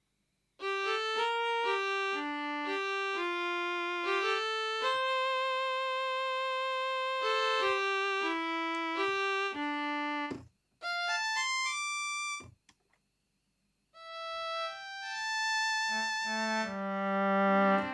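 Kurzweil K2000 synthesizer playing a factory program dry, with no effects: a melody of single sustained notes, then a quick rising run of high notes. After a short pause near the middle, a lower-pitched patch starts playing.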